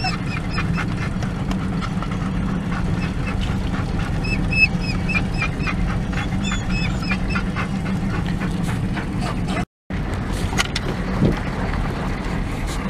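Pickup truck cab noise while driving a dirt road: a steady low rumble with rattling and gravel clicks, and short high squeaks now and then. The sound drops out for a moment about ten seconds in.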